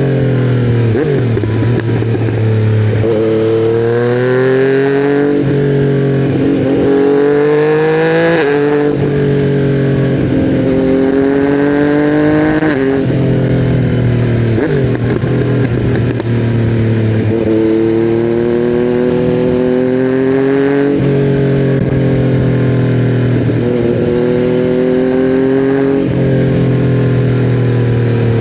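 2020 Yamaha MT-09's 847 cc inline-three engine through custom headers and a titanium Akrapovic silencer, pulling hard: the pitch climbs in each gear and drops sharply at each upshift, again and again, with a few short lifts off the throttle.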